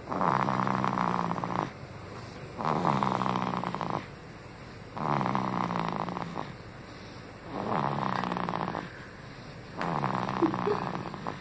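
A baby snoring in a steady rhythm: about five snores roughly every two and a half seconds, each lasting a second or more, with quieter breaths between.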